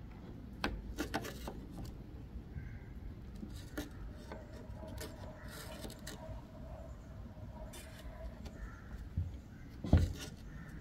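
Flat-blade screwdriver prying a radiator's plastic tank off its crimped metal header: scattered metal clicks and scrapes, a drawn-out squeak in the middle as the tank edge works loose, and a sharp knock near the end.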